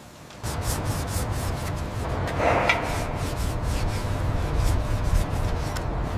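Arc welding crackling steadily, starting about half a second in.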